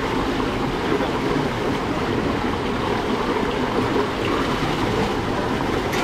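Water rushing steadily through the launch basin at the top of a speed water slide.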